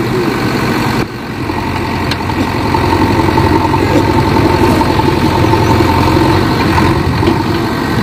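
Diesel engine of a JCB 3DX backhoe loader running steadily as the machine works its backhoe arm and front bucket to push itself free of the mud. The loudness dips briefly about a second in.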